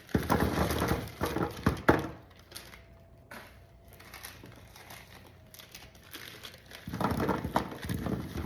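Plastic bag crinkling and rustling as it is handled, in two bouts: about two seconds at the start with a few sharp crackles, and again near the end.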